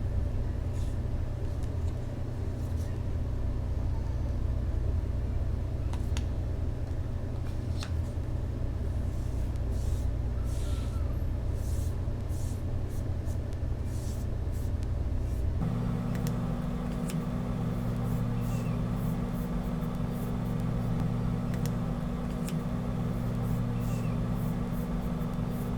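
A steady low mechanical hum with faint scattered clicks. About two-thirds of the way through, the hum changes abruptly to a steadier drone with a clear low pitch.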